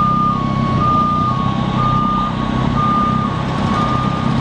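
An electronic warning beeper alternating between two close high tones, one high-low cycle about every second, over a steady low hum of engines.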